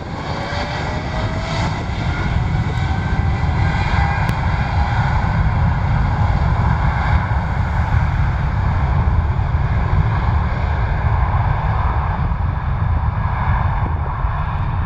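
Boeing 777-300ER's twin GE90-115B turbofan engines at takeoff thrust during the takeoff roll: a whine rising in pitch over the first two seconds, then a loud, steady low rumble that eases slightly near the end as the jet moves away.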